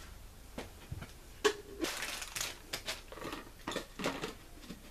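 Cardboard and plastic packaging being handled while blender parts are unpacked: scattered rustles, crinkles and light plastic knocks, about eight brief sounds.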